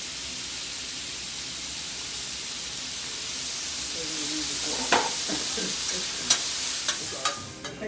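Food sizzling on a hot teppanyaki griddle, a steady hiss, with metal spatulas clacking against the griddle plate several times in the second half.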